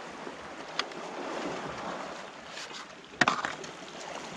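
Steady wash of the sea against the shore, with a light click about a second in and a sharper knock about three seconds in.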